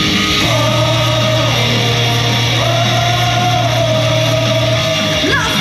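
Live idol-group pop-rock music with electric guitar: a long held melody note over a sustained low note and fast, steady drumming, the low note dropping out near the end.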